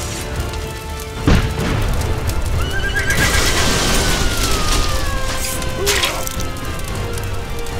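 Battle sound effects: a horse neighs in one long call that falls in pitch through the middle, with a heavy impact about a second in and another near the end, over a noisy battle din and a dramatic music bed.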